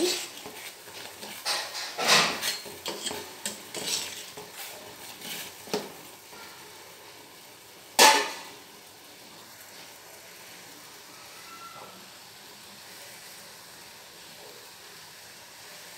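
Perforated steel skimmer stirring soya chunks in a steel pot of boiling water, scraping and clinking against the pot for the first six seconds, then one sharp metal clank about eight seconds in. After that the water bubbles steadily at the boil.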